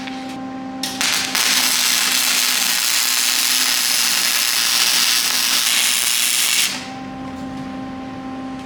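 Welding arc crackling and hissing: a short blip about a second in, then a steady weld of about five seconds that stops abruptly, over a constant electrical hum.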